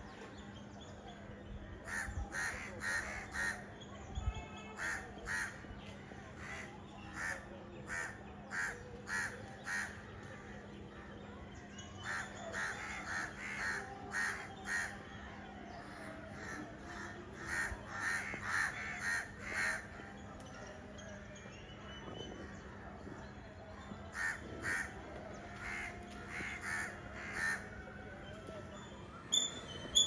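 A crow cawing in three long series of repeated calls, about two a second, with pauses of a few seconds between the series.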